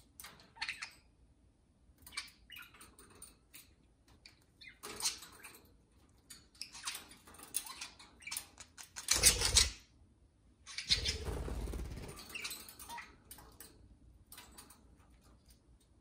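Budgerigars chirping and chattering in short, irregular bursts, with two louder stretches of noise about nine and eleven seconds in.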